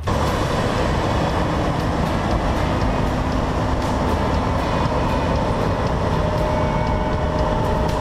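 John Deere S680 combine harvester running under load while cutting wheat: a loud, steady machine rush over a deep rumble, with a couple of steady whines joining about halfway through.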